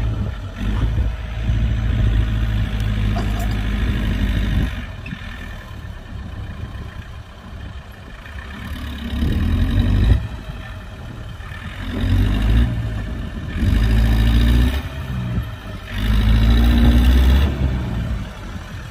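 Kubota tractor's diesel engine revving hard in repeated surges, with quieter running between them. The pattern is a long burst at first, then four shorter ones with the pitch climbing, typical of a tractor straining in deep mud.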